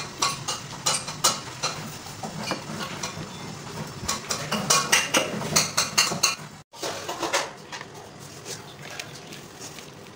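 Repeated clinks and knocks of a metal utensil against a pan and plate, with some scraping. After a short break near the two-thirds mark, quieter handling of shredded cabbage in a plastic bowl.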